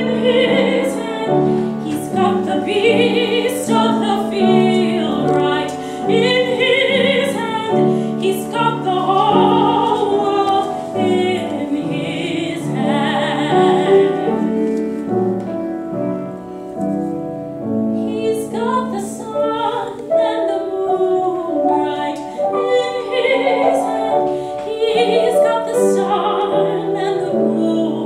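Operatic soprano singing a classical song with vibrato over an instrumental accompaniment. The voice drops back briefly about halfway through while the accompaniment carries on.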